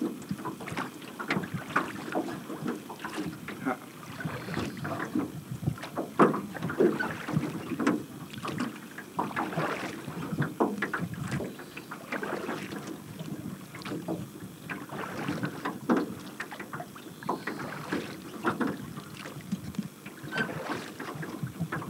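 Small boat under way on choppy lake water: water and wind noise with a steady run of irregular knocks and splashes from the hull meeting the chop.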